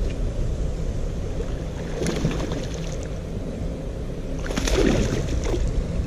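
A small hooked bass splashing at the surface beside the boat as it is reeled in, in two spells, about two seconds in and again near the end, over a steady low rumble.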